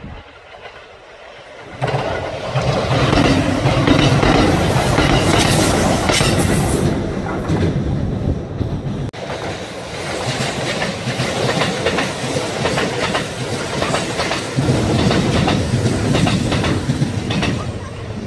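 Kintetsu electric trains passing close by, the wheels clacking over the rail joints. The noise rises sharply about two seconds in, stays loud, and dips briefly about halfway through.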